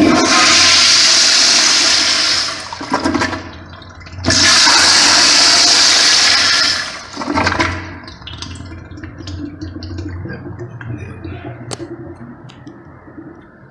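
A newly installed manual Sloan flushometer valve flushing a commercial toilet twice, each flush a loud rush of water about two and a half seconds long. After the second flush, quieter trickling with a few light clicks follows.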